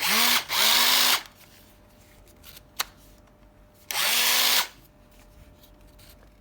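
Makita cordless drill-driver run in three short trigger pulls, the motor whining up to speed and holding a steady pitch each time; the first two come close together, the third about three seconds later. A single sharp click falls between them.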